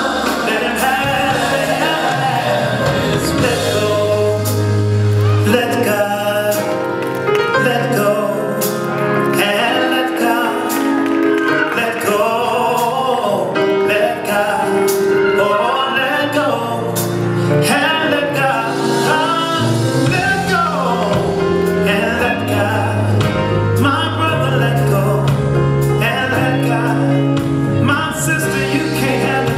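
Gospel song playing, with a male lead singer over a sustained bass and keyboard accompaniment.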